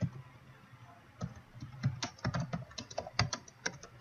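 Typing on a computer keyboard: irregular keystroke clicks, only a few in the first second, then a quick run of keys from about a second in.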